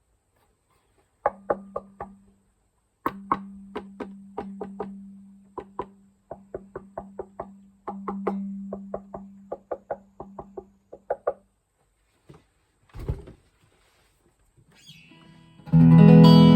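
Schecter OL-PT-TH electric guitar through a VOX MINI5 practice amp: sharp picked single notes, many repeated over one sustained low note, for about ten seconds. After a pause and a low thump, loud ringing chords start just before the end.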